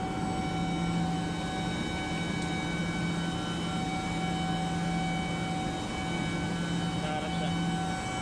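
Steady mechanical drone of running rooftop chiller machinery: a low hum with several steady tones above it, the low hum fading for about a second between six and seven seconds in.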